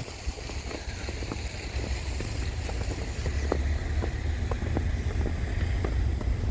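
A car driving slowly along a snow-covered street, its low rumble growing gradually louder, with wind noise on the microphone and a few faint scattered clicks.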